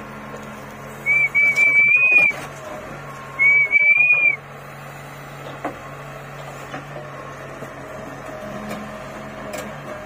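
Two loud, high whistles, each about a second long and rising slightly at the end, the second about a second after the first. Under them a steady low hum fits the backhoe loader's diesel engine running.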